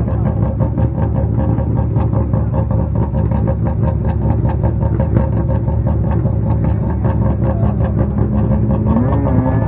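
Renault Clio S1600 rally car engine idling with an uneven, pulsing beat. A faint rising tone creeps in near the end.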